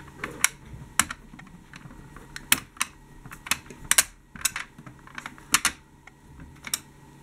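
Plastic doors of a Siku toy tram being flipped open and shut by hand: a dozen or so sharp, irregular clicks.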